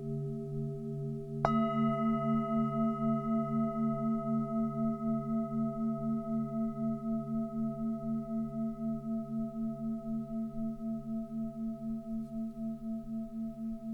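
Tibetan singing bowls ringing. One bowl is struck about a second and a half in, and its tones ring on over a bowl already sounding, with a steady wavering pulse of about three beats a second that slowly fades.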